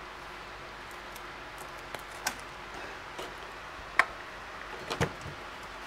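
Light plastic clicks and taps as the clip-on terminal caps are pressed into their slots on a Gen 2 Toyota Prius hybrid battery pack. There are about half a dozen separate clicks, the sharpest about four and five seconds in.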